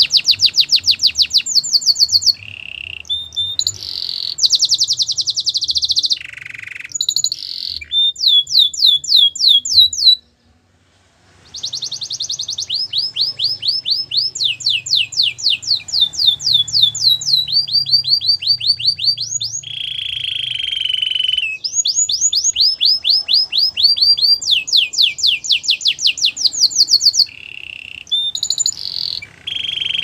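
Canary singing: long phrases of rapid trills, each a fast run of repeated high notes, changing tempo and pitch from one tour to the next. There is a brief pause about a third of the way in, and a few rougher, buzzier notes come later.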